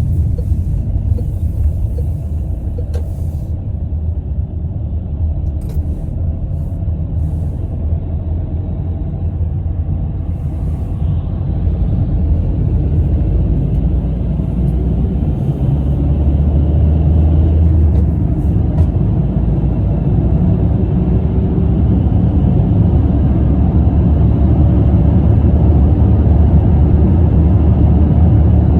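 Car driving on the road: a steady low rumble of tyres and engine that grows gradually louder over the second half as the car picks up speed.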